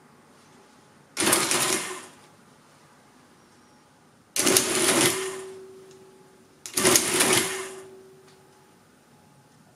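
Marchant 8CMR electromechanical calculator cycling its motor-driven mechanism three times as its function keys are pressed: three bursts of mechanical clatter about a second long each. A steady tone lingers and fades after the second and third.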